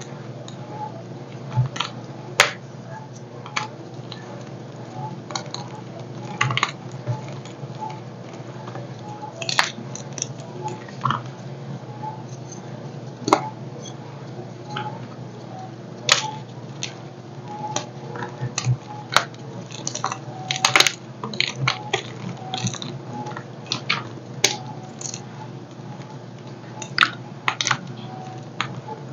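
Dyed gym chalk blocks crushed and snapped in bare hands: irregular dry crunches and cracks as the blocks break and crumble into powder, over a steady low hum.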